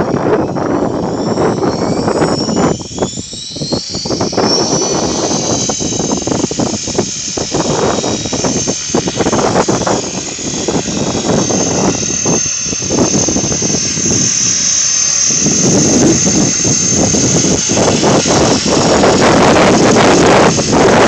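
Electric motors of a '550'-size radio-controlled model aircraft, rising in pitch as several high whines over the first few seconds and then running at a steady high whine. Strong wind buffets the microphone throughout.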